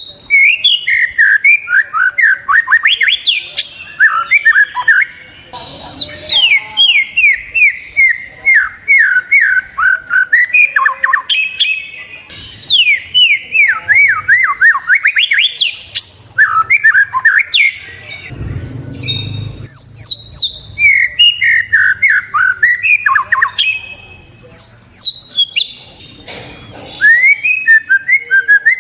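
White-rumped shama (murai batu) singing: fast runs of quick downward-sweeping whistled notes, phrase after phrase with short breaks. A brief low rumble about two-thirds of the way through.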